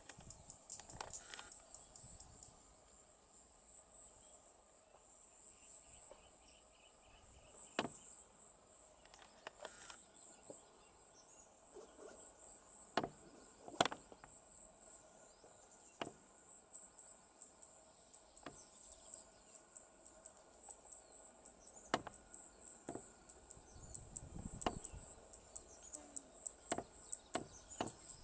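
Insects chirping in a steady, high-pitched pulsing trill, with scattered sharp clicks throughout, the loudest of them about halfway through.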